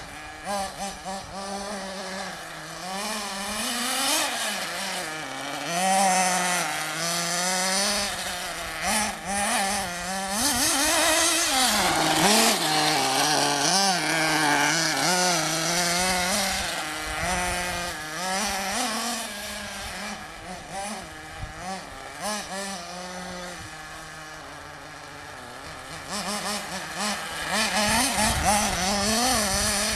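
Small engine of a radio-controlled off-road buggy revving up and down, its pitch rising and falling every second or so as it races. It fades somewhat past the middle and comes back louder near the end.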